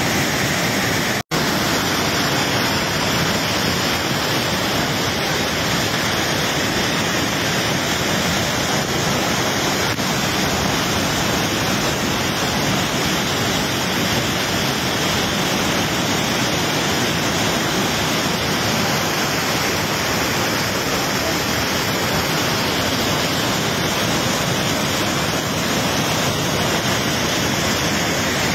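Waterfall and river in flood after heavy rain, muddy floodwater pouring down and rushing in a loud, steady, unbroken noise. The sound cuts out for an instant about a second in.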